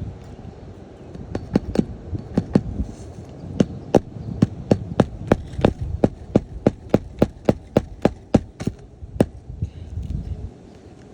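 Claw hammer nailing down asphalt roof shingles: some two dozen sharp blows, a few spaced out at first, then a steady run of about four a second, stopping about nine seconds in. Wind rumble on the microphone underneath.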